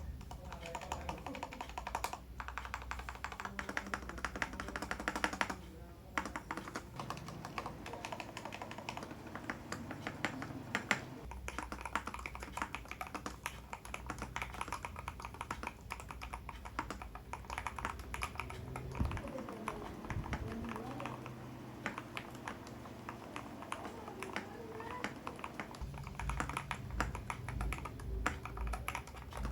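Continuous fast typing on a Keydous NJ80 mechanical keyboard with a brass plate and dampener, a dense run of key clacks.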